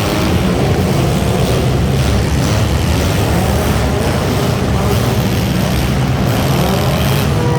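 Front-wheel-drive hobo stock cars' engines running loudly at racing speed, a dense steady rumble with engine pitch rising and falling as they rev.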